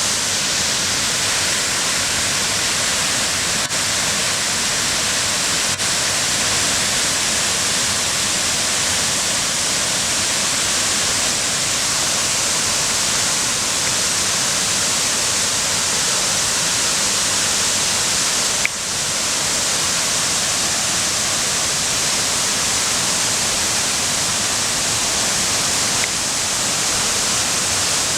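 Waterfall roaring with a steady, even rush of falling water. A single brief click comes about two-thirds of the way through.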